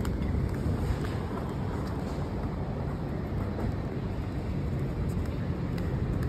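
Outdoor city street ambience while walking: a steady low rumble of traffic, mixed with wind on the microphone.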